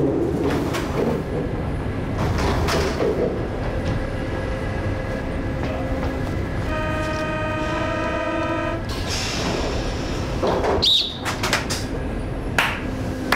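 Paris Métro train rumbling, heard from inside the car. About seven seconds in, the door-closing warning signal sounds as a steady buzzing tone for about two seconds. The doors then slide shut with a clatter.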